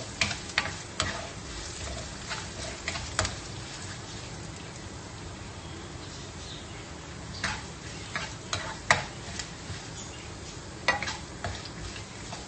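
Onions, cashews and curry leaves sizzling in hot ghee in a non-stick frying pan while a spatula stirs them, with sharp scrapes and knocks of the spatula against the pan now and then, fewest in the middle stretch.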